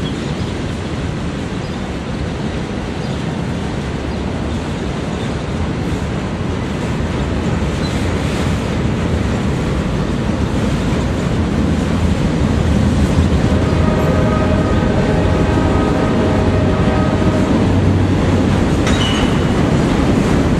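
Freight train cars rolling past: a steady rumble of steel wheels on rail that grows louder about halfway through. A thin, high wheel squeal joins in about two-thirds of the way through.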